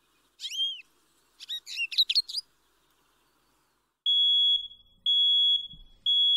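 A few quick bird chirps, then a smoke alarm beeping: a steady high tone about half a second long, repeated once a second, starting about four seconds in. The alarm is going off for a kettle left on until it burnt.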